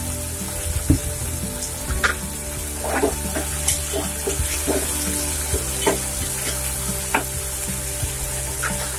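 Chopped tomatoes, shallots and garlic sizzling in oil in a wide metal pan, sautéing until soft. A ladle scrapes and taps against the pan as they are stirred.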